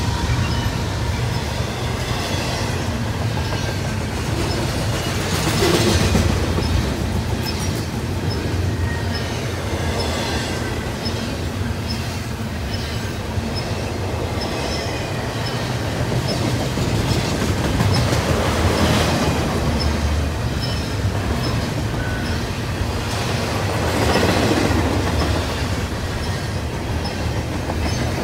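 Double-stack intermodal well cars rolling past at speed: a steady rumble and clacking of steel wheels on rail that swells louder several times, with a faint high-pitched squeal from the wheels at times.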